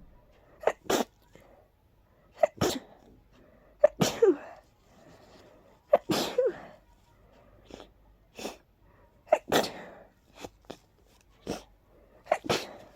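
A person sneezing over and over, wet sneezes coming every one to three seconds with shorter, quieter sounds in between. The sneezing is brought on by a pollen allergy.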